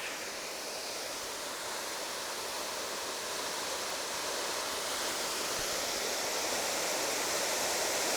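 Winter Falls waterfall flowing: a steady, even rush of falling water that grows slowly a little louder.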